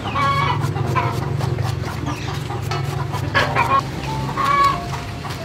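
Chickens clucking in short calls near the start and again a few seconds later, over a steady low hum.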